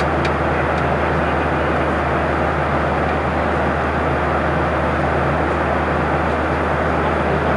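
Steady in-flight cabin noise inside a Boeing 737-800: an even rushing roar with a constant low hum beneath it.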